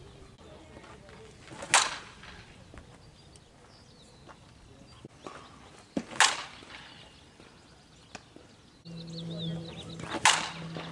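Softball bat hitting the ball three times during batting practice: sharp cracks about four seconds apart. A low steady hum starts about two seconds before the end.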